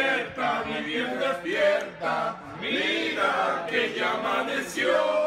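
A group of men singing together loudly and loosely, with a long held note near the end.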